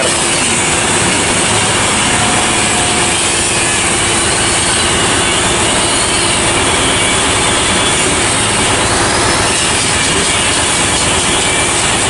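Wet hand-sanding of filler on a bus's steel side panel: a sanding block and wet sponge rubbing and scraping over the surface, under a loud, steady workshop hiss.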